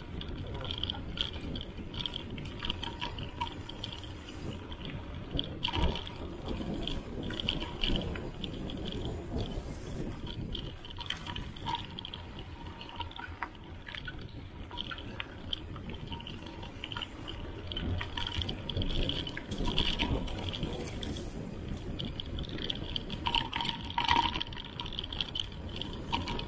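Mountain bike riding down a dirt singletrack: a steady rush of tyre noise on the trail, with frequent short rattles and knocks as the bike goes over bumps.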